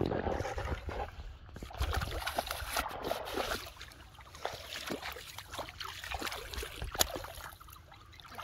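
Shallow muddy pond water splashing and sloshing as hands grope through it for fish, with many small irregular splashes, busier in the first few seconds, and one sharper splash about seven seconds in.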